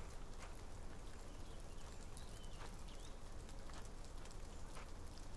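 Light rain falling, with scattered individual drops ticking, as on umbrella fabric.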